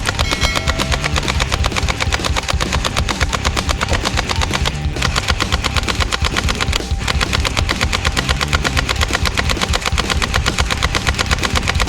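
Rapid automatic gunfire in a continuous stream of shots, with two brief breaks about five and seven seconds in.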